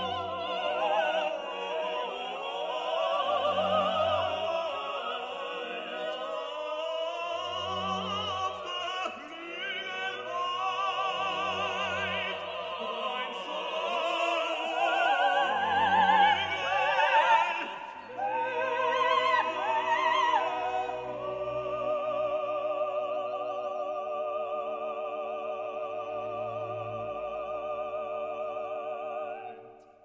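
Background music in an operatic style: a singing voice with wide vibrato over sustained accompaniment and a low pulse about every four seconds. It settles into long held notes about two-thirds of the way through and fades out at the end.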